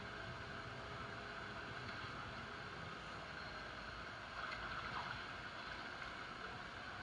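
Rushing river water, a steady noisy wash that swells a little about four and a half seconds in.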